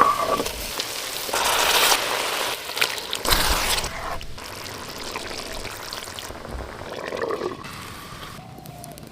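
Liquid being poured in two short bursts about two seconds apart, with quieter wet kitchen sounds between.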